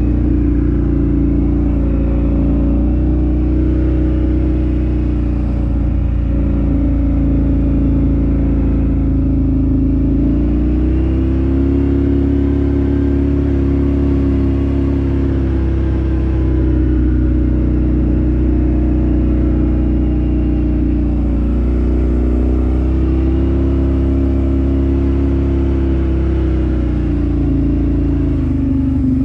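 Off-road vehicle engine heard from on board while riding, running continuously, its note climbing twice with the throttle and settling back each time, over a steady low noise.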